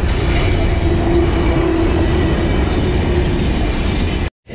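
Mauritanian iron ore train's freight wagons rolling past close by, a loud steady rumble and rattle of wheels on rail. A steady whine runs through the middle, and the sound cuts off abruptly near the end.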